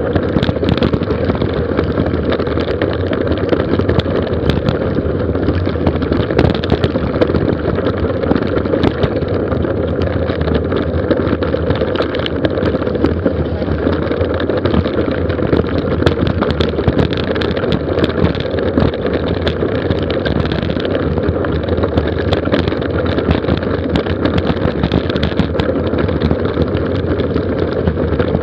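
Mountain bike descending a gravel road at speed: a steady rush of wind on the microphone, with tyres rolling over gravel and a constant scatter of small clicks and rattles from the bike.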